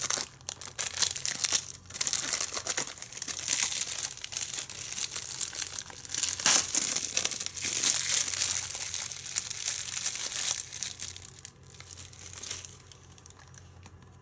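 Thin plastic shrink-wrap being torn and peeled off a Blu-ray case and crumpled in the hands: irregular crinkling and crackling that dies down over the last few seconds.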